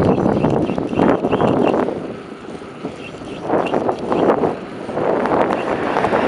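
Wind buffeting the microphone of a camera on a moving bicycle, a rough rushing noise that rises and falls, easing off for about a second a couple of seconds in.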